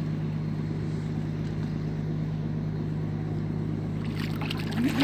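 A boat's engine running steadily with a constant low hum, with some brief handling noise near the end.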